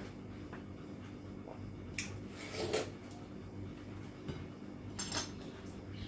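Tableware clatter during a meal: a few brief clinks and scrapes, about two seconds in and again about five seconds in, over a low steady hum.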